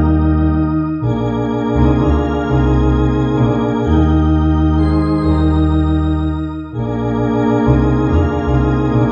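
Electronic organ (an MD-10 EVO two-manual console) playing a slow hymn in held chords over a moving bass line. There is a short break between phrases about two-thirds of the way through.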